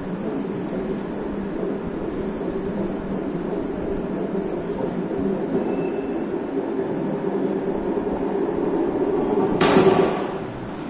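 Steel ball rolling around a funnel-shaped gravity-well exhibit, a steady rumble that slowly grows louder as it spirals toward the centre. Near the end comes a loud clatter as the ball drops through the central hole.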